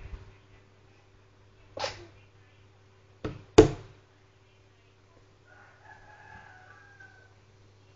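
A rooster crowing faintly, one long call starting about five and a half seconds in. Before it come three short sharp knocks, the loudest about three and a half seconds in.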